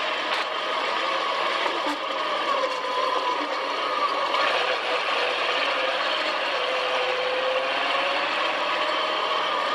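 Dune buggy engine running while driving over sand, its pitch drifting slowly up and down with the throttle over a steady rush of noise.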